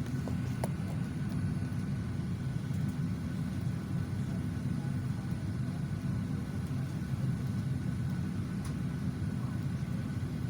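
Steady low rumble inside a parked airliner's cabin from the air-conditioning and ventilation, with a faint steady high whine and a couple of light clicks.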